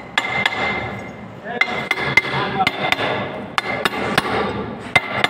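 Hammer strikes on metal while a bearing is driven onto a pump motor's shaft: a couple of blows, a pause of about a second, then a run of sharp taps at about three a second.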